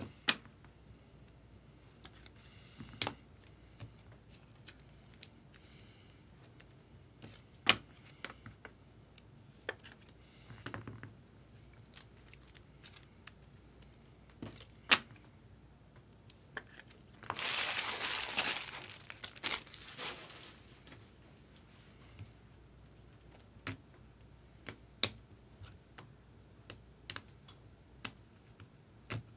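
Scattered light clicks and taps of card handling, with one louder burst of crinkling from a foil card-pack wrapper lasting about three seconds, a little past the middle.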